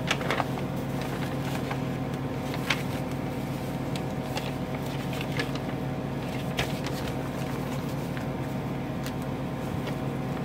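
Paper and an envelope being handled, with a few short rustles and light taps, over a steady low electrical or mechanical hum.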